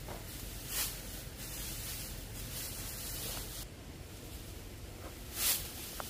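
Dry harvested rice stalks rustling, with two short swishes of straw as sheaves are handled, over a steady low hiss.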